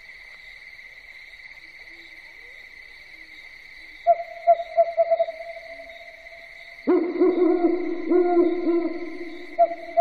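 Owl hooting: a quick run of short hoots about four seconds in, then a louder, lower bout of calls from about seven seconds in, and another quick run of hoots near the end. A steady high-pitched drone runs behind.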